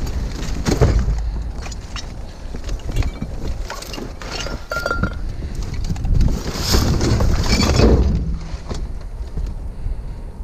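Scrap and junk clattering and clinking with many scattered knocks as it is handled and moved, with wind rumbling on the microphone.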